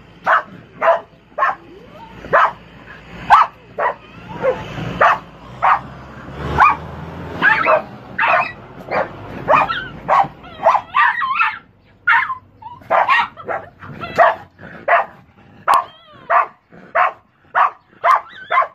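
Dog yipping and barking in quick short calls, about one or two a second, excited at a wire cage trap.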